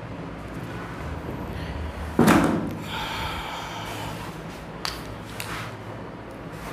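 A man sneezing once, loudly, about two seconds in, with a short voiced tail after the burst, over a steady low room hum.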